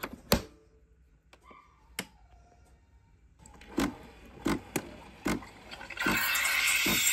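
Clicks and knocks as a Nespresso capsule machine is handled, its capsule lid open under the hand, then about six seconds in the machine's steam wand starts frothing milk in a stainless jug with a steady hiss.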